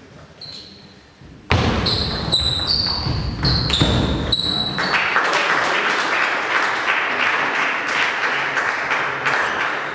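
Table tennis ball struck back and forth in a rally, a sharp ping about every half second until the rally stops about five seconds in. From about a second and a half in, a loud steady noise sits under the pings.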